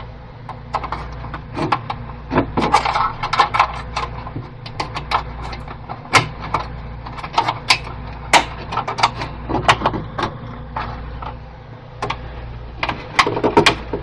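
Plastic clicking and knocking as the hard plastic housing and intake strainer of a Petmate pet water fountain are handled and pressed back into place, in scattered single clicks and quick clusters over a steady low hum.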